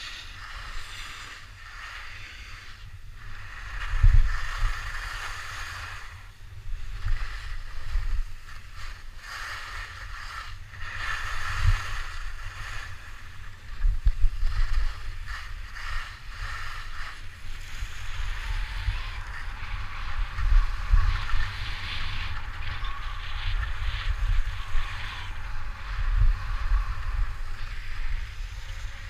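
Wind buffeting an action camera's microphone during a fast downhill run. Under it is the steady hiss and scrape of edges carving over packed snow, which grows stronger in the second half.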